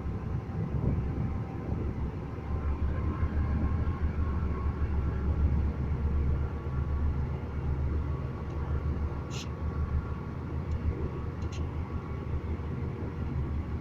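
Diesel engine of a railway repair train running steadily with a low rumble, with two or three brief sharp high-pitched sounds near the middle.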